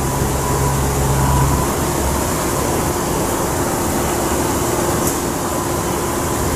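Road traffic noise: a steady roar with a passing vehicle's low engine hum that fades out about two seconds in.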